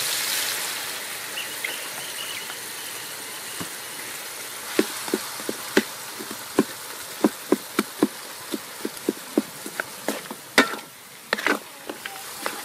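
Vegetables frying in a metal wok with a steady high hiss. From about five seconds in, a wooden spatula stirring knocks against the wok in sharp, irregular taps, two or three a second.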